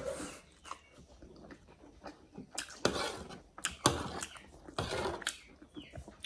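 Metal spoon clicking and scraping against a tray as food is scooped up, a string of sharp clicks and short scrapes, with chewing between them.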